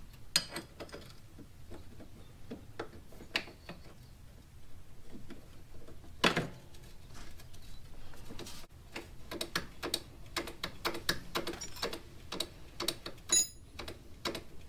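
Scattered light clicks and taps of hands handling tools and small parts, more frequent in the second half, with one louder knock about six seconds in and a brief high squeak near the end.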